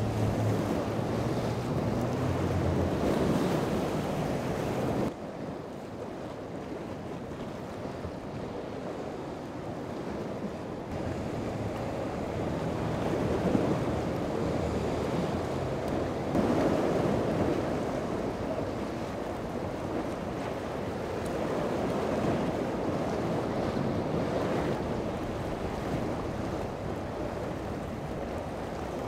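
Waves and surf churning with wind buffeting the microphone. A boat engine hums under the water noise for the first five seconds.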